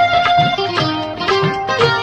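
Background instrumental music: a melody of held notes over a steady drum beat.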